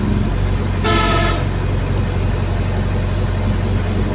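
Caterpillar excavator's diesel engine running steadily under load as the boom and bucket work, heard from inside the cab. A vehicle horn honks once, for about half a second, about a second in.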